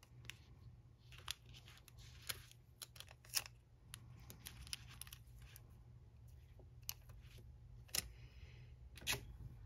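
Faint clicks and crinkles of sticky tape being torn, pressed onto and peeled off the skin around a fingernail to lift stray stamping polish. A steady low hum runs underneath.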